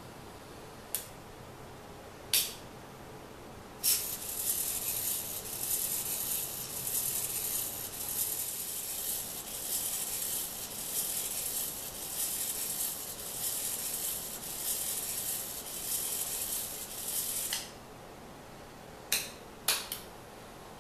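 A small motorised mechanism runs for about fourteen seconds, a hissy, uneven whir with no steady pitch. It is bracketed by sharp clicks, two before it starts and a quick cluster of three near the end.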